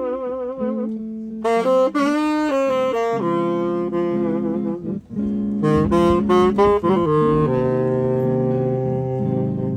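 Saxophone playing a slow melody, with vibrato on the held notes and a quick run of notes about six seconds in, over guitar accompaniment.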